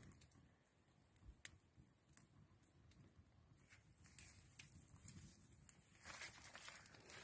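Faint crackling of a small fire of dry twigs in a stone fireplace, scattered light pops a second or so apart. A soft rustling hiss rises about six seconds in.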